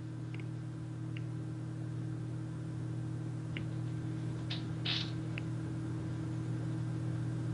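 Steady low electrical hum picked up by a computer microphone, with a few faint clicks and a brief soft hiss about five seconds in.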